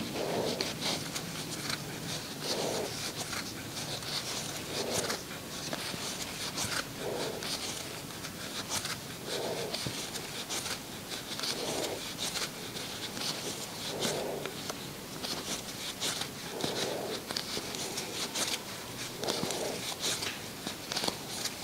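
Yarn rasping and catching on a crochet hook as single crochet stitches are worked. Fine scratchy ticks run throughout, with a soft swish repeating about every two seconds.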